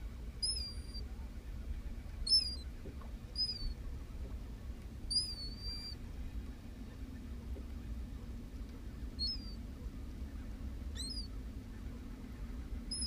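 A bird calling with short, high, thin chirps that dip and rise in pitch, about seven of them at irregular intervals, one longer than the rest about five seconds in. Beneath them runs a low steady hum and rumble.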